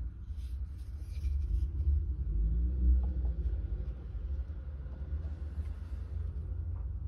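Steady low rumble throughout, with brief faint rustling and scraping about half a second to two seconds in as the knife's green sheath and its leather belt loop are handled and set down on a wooden table.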